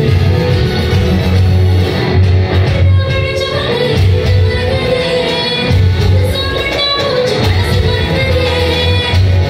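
Live band music amplified through a PA: electric guitar and keyboards over a heavy pulsing bass, with a woman singing the melody from about three seconds in.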